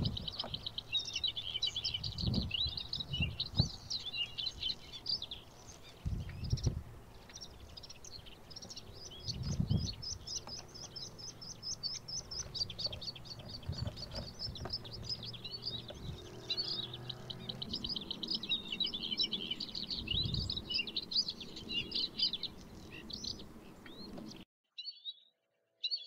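White-spotted bluethroat singing: a long, fast run of varied twittering and buzzy high notes in quick phrases with brief pauses, cutting off suddenly near the end. A few low thumps sound underneath.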